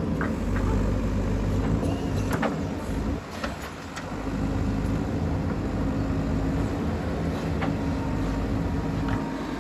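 JCB 3DX backhoe loader's diesel engine running steadily while digging, its note dropping for about a second around three seconds in and then picking up again, with a few sharp knocks over it.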